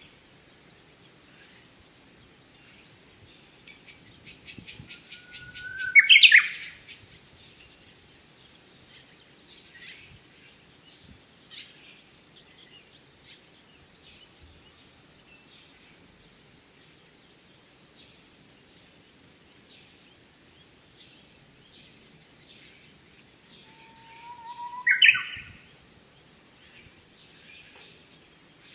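A songbird singing two loud songs, about six seconds in and again near the end, each a held whistle that breaks into a quick rising flourish. Faint chirps of other birds come between, with a rapid series of high ticks just before the first song.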